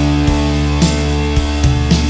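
Background rock music with guitar and a steady drum beat, about two beats a second.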